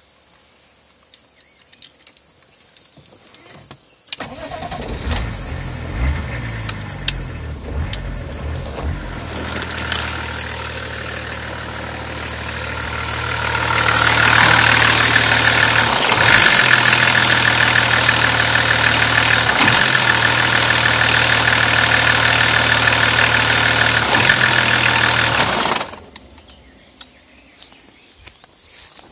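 BMW E39 turbodiesel straight-six starting about four seconds in, running unevenly at first and then idling steadily. It is heard much louder and closer from about halfway, and cuts out suddenly near the end. The owner reports it running rough, with the DDE diesel engine-management warning lit.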